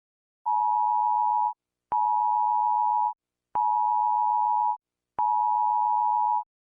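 Electronic alert tone beeping four times, each beep a steady tone just under 1 kHz lasting about a second, with a short click at the start of the last three.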